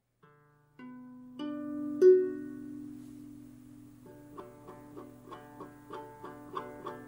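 Music on a plucked string instrument: a few single notes ring out, the loudest about two seconds in, then from about four seconds in a steady picked figure of about three notes a second.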